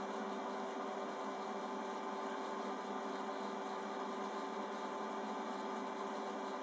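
Steady hum with an even hiss, unchanging throughout, as from a small motor or fan left running.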